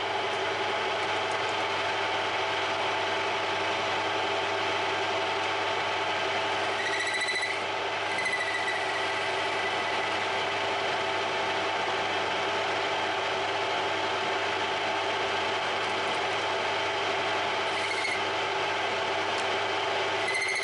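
Metal lathe running steadily as a cut cleans up a 304 stainless steel bar, with a high squeal that comes and goes a few times.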